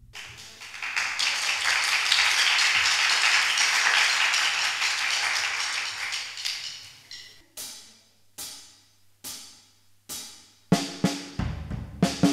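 Audience applause swells and dies away. Then drumsticks click four times as a count-in, about a second apart, and a drum kit starts playing with bass drum, snare and cymbals near the end.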